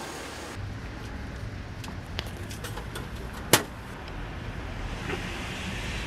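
Steady low rumble of street traffic, with a few light clicks and one sharp click about three and a half seconds in.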